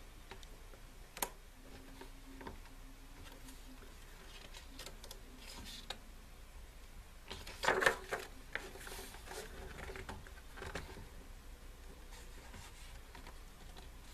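Pages of a thick album photobook being turned and handled, with soft paper rustles, a sharp click about a second in, and a louder handling noise about eight seconds in.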